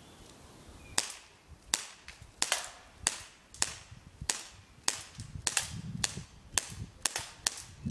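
Beretta M84 Cheetah BB pistol fired semi-automatically, about a dozen sharp cracks in steady succession roughly every half second, beginning about a second in.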